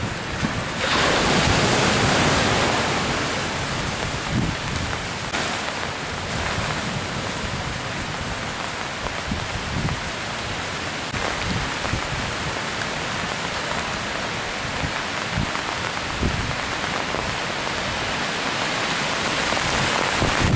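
Storm surf breaking and washing against a concrete tetrapod breakwater, with a louder surge from about one to three seconds in, then a steady hiss of rain and wind over rough sea.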